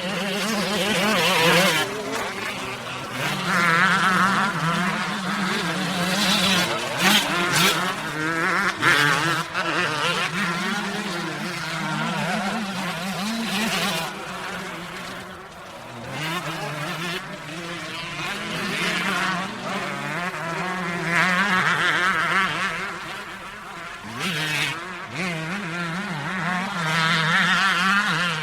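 Motocross dirt bike engines revving hard, their pitch climbing and falling again and again as the throttle opens and closes, with the loudness swelling and fading.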